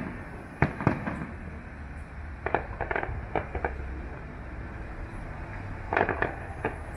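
Distant aerial fireworks going off as scattered sharp bangs: two about half a second in, a quick run of several around three seconds in, and a cluster near the end, over a steady low background rumble.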